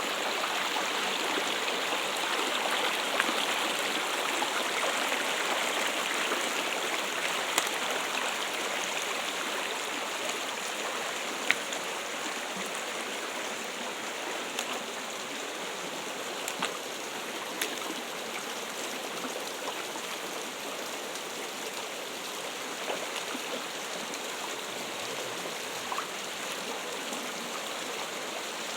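Water trickling and splashing steadily, a small stream with a few faint drips or splashes standing out.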